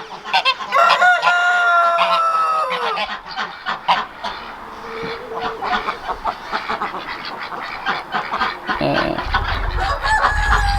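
Farmyard poultry calling: a rooster crows twice, a long held call that drops away at its end, about a second in and again near the end, over short clucks, quacks and honks. A low rumble sets in near the end.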